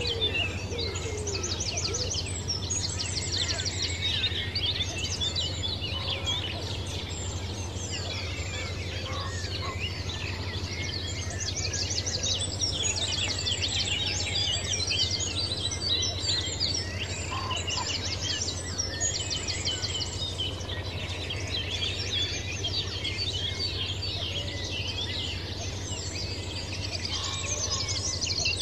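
Many wild birds chirping and singing at once, with repeated fast high trills, over a steady low hum.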